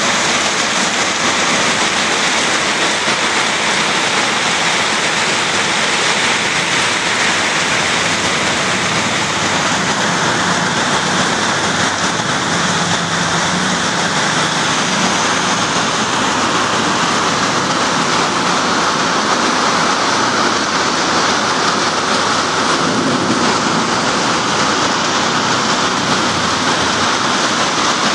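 Heavy rain falling steadily in a downpour: a dense, even hiss with no let-up.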